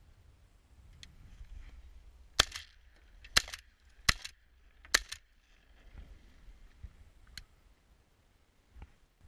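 Four sharp shotgun shots about a second apart, around the middle, some with a quick second crack close behind.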